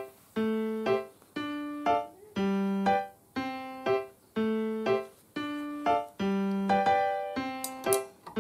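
Background piano music: single notes about once a second, each ringing out and fading. Near the end come a few quick clicks from a ratcheting combination wrench being worked on a bolt.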